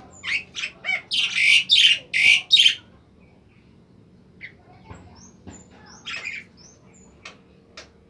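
Caged bimoli, a golden whistler, singing: a quick run of short notes leads into loud, full whistled phrases in the first three seconds. Softer scattered calls and ticks follow.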